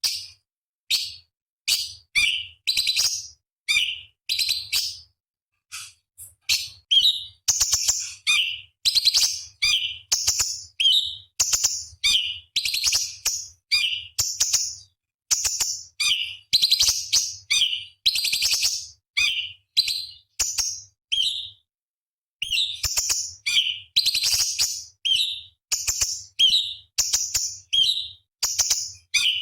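Orange-bellied leafbird (cucak cungkok) singing a fast, high-pitched song of short chattering phrases, about one to two a second, with brief pauses about six seconds in and again about twenty-two seconds in.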